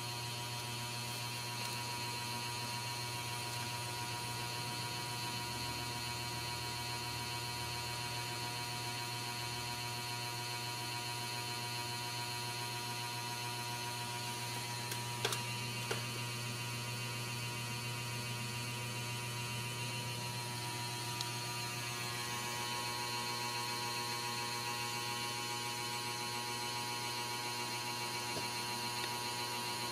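Steady electrical hum with several high whining tones, unchanging throughout, and two faint clicks about halfway through.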